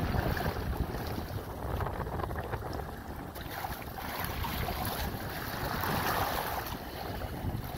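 Wind buffeting the microphone over choppy water splashing and washing along a kayak's hull as it moves through wind-driven chop, with a louder surge of wash about six seconds in.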